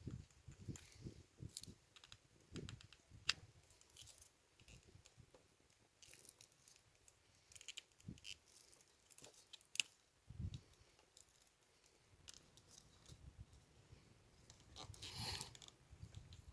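Faint, scattered clicks and light taps of small parts and tools being handled, with a short rustle near the end.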